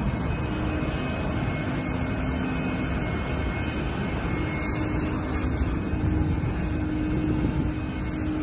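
Boeing 747 jet engine running on the ground: a steady rushing noise with a faint continuous hum.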